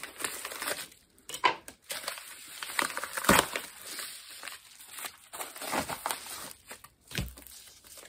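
A small mail package being opened by hand: irregular tearing, crinkling and rustling of the packaging, with a sharper rip about three seconds in and a dull thump near the end.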